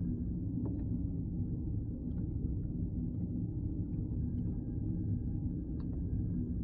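Sci-fi starship ambience sound effect: a steady low engine hum and rumble, with a faint high tone and soft ticks every second or two.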